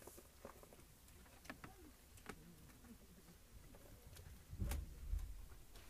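Quiet inside a slowly moving passenger rail car: faint scattered clicks and creaks, with a low rumbling thud about four and a half seconds in.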